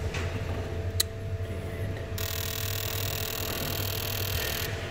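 Fuel injector on a 1996 Buick Century's 3.1L V6 being pulsed by a scan tool in an injector balance test: a sharp click about a second in, then a steady hissing buzz from about two seconds in until near the end, over a low hum. The pulse lets fuel rail pressure fall from about 40 to 35 psi, a normal drop for a flowing injector.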